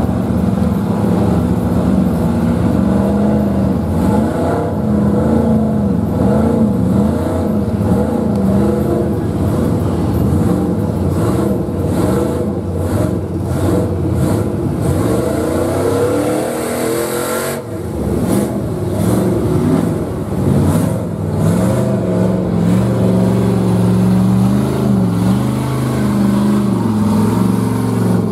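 Mega trucks' engines revving as the trucks churn through a mud hole, the engine note rising and falling again and again. A hissing rush builds about halfway through and cuts off sharply.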